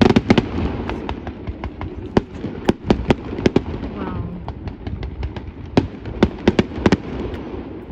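Fireworks display going off: a rapid run of sharp bangs and crackling reports, densest in the first second, thinning out, then another quick cluster of bangs a little before the end.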